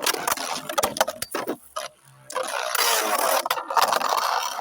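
3D-printed Beyblade tops clattering in a stadium: a rapid run of clicks and clacks, a short pause about two seconds in, then continuous scraping and whirring as the spinning tops grind against each other and the stadium floor.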